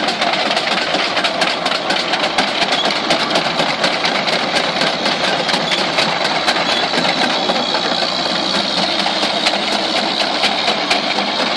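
Renault FT light tank moving slowly on its modern hydraulic drive: a steady mechanical running sound under a dense, rapid clatter from the steel tracks and running gear as it passes close by.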